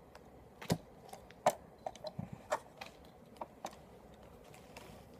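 A run of about a dozen light, irregular clicks and taps of small hard objects being handled, the loudest about a second and a half in, dying away after nearly four seconds.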